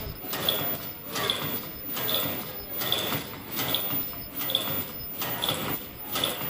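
Automatic disposable face mask making machine running: a continuous mechanical clatter with a short high chirp and click repeating about every 0.8 s as each cycle turns out a mask.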